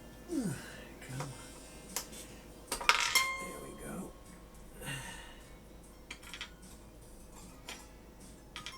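Small metal guitar bridge parts clinking and rattling as they are handled: a handful of sharp clicks, the loudest cluster about three seconds in, followed by a brief metallic ring.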